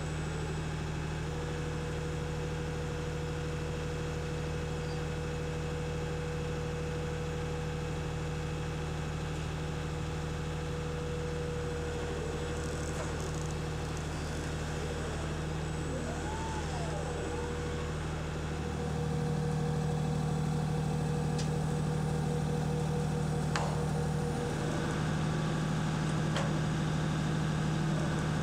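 Steady engine hum of the mobile module-assembly robot's carrier running at idle, with a constant whine over it. A few short rising-and-falling whines come about halfway through, and the hum steps up in level about two-thirds of the way in.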